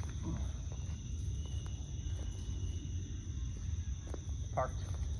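Steady drone of insects with a continuous low rumble of wind on the microphone; a short pulsed call cuts through about four and a half seconds in.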